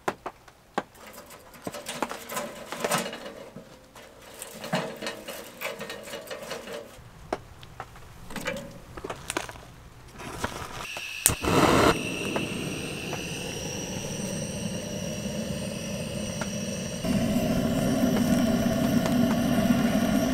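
Split firewood knocked and shuffled into the steel firebox of a small wood stove. About halfway through, a click and a gas torch lights with a steady hiss, which grows louder a few seconds before the end as the flame is worked into the kindling.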